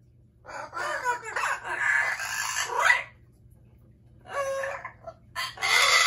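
Amazon parrot squawking in harsh calls that glide up and down in pitch: a long run of calls, a pause of about a second and a half, then a short call and a louder one near the end.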